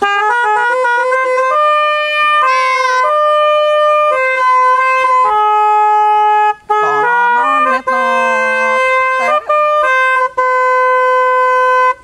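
Telolet snail horns on a toy truck, driven by a DAV musical horn module, play a melody of held notes that step from pitch to pitch every half second to a second. The module can sound six different notes. A voice joins in briefly about seven seconds in.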